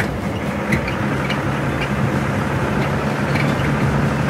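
Truck engine sound effect running steadily, a low hum.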